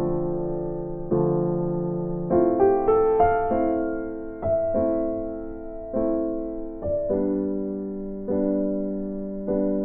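Background music: slow, gentle electric piano chords, each struck and left to fade.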